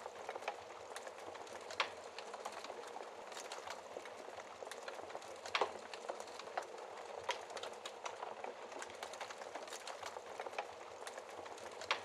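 Wood fire crackling in a fireplace: a steady soft hiss with many small crackles and a few louder pops, the loudest about five and a half seconds in.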